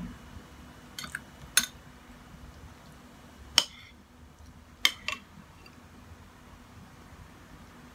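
Metal cutlery clinking against ceramic bowls while eating noodle soup: about five sharp clinks with a short ring, the loudest about three and a half seconds in.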